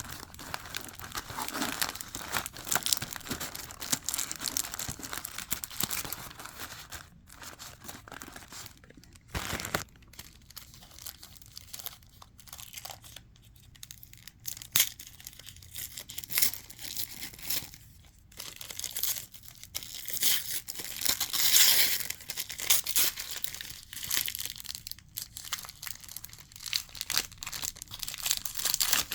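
Wrapping on a small advent calendar gift being crinkled and torn open by hand, rustling in fits and starts.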